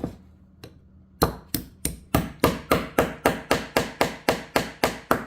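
Hammer head of a 12-in-1 folding multitool striking repeatedly: about seventeen sharp, quick blows, roughly four a second, each with a short ring.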